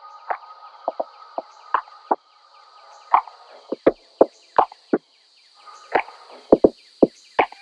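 Quiet opening of a background music track: sparse, irregular knocks or plucked clicks over a faint steady high tone, just before the full track comes in.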